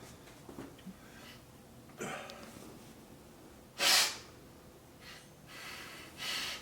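A man breathing hard through a nose burning from inhaled Carolina Reaper chili powder: three sharp, noisy breaths, the loudest about four seconds in.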